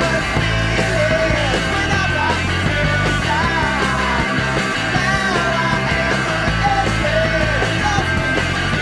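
Rock music, with a melodic line that bends up and down in pitch over a dense, steady backing.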